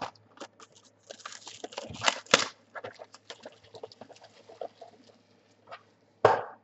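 Trading card packs and cards being handled: foil wrappers crinkling and tearing and cards clicking and sliding against each other in quick, irregular rustles, with a loud short knock near the end.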